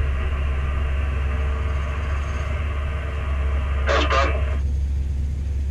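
Steady low rumble of a Saez TLS80 tower crane running, with a hiss over it that cuts off suddenly near the end. A brief snatch of a voice comes in about four seconds in.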